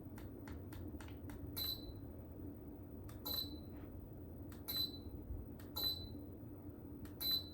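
Remote control buttons clicking repeatedly, with a short high beep about five times as the ceiling fan's receiver acknowledges each press, changing the LED light's colour setting. A faint steady hum runs underneath.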